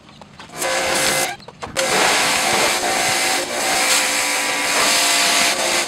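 2000 psi pressure washer spraying a wooden deck: the hiss of the high-pressure water jet over the steady hum of the machine. It starts about half a second in, cuts out briefly, then runs on steadily.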